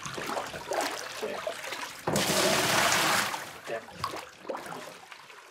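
Hot-spring water splashing and trickling as it is scooped by hand into a plastic washbasin, with one loud pour lasting about a second in the middle.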